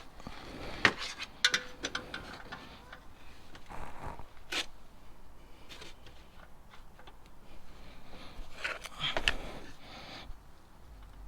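Scattered light metallic clicks and scrapes of a wrench and hand on a threaded oil-change part, turned in by hand until it stops and then snugged a little further with the wrench.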